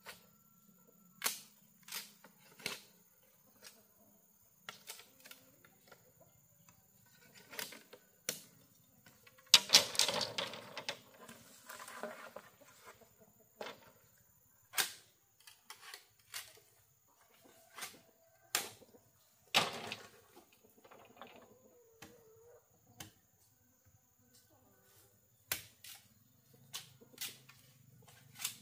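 Irregular sharp knocks and clacks from hand work on bamboo, with a longer clatter about ten seconds in and another loud knock near twenty seconds.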